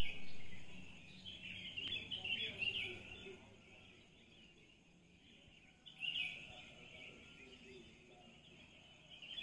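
Birds chirping and chattering in the background, in a busy stretch over the first three seconds and another short burst about six seconds in.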